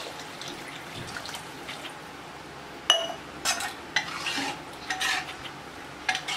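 Water poured into a metal pot of sautéed field beans and masala, faint and steady, then a steel ladle strikes the pot with a short ring about three seconds in and scrapes and clinks against it while stirring.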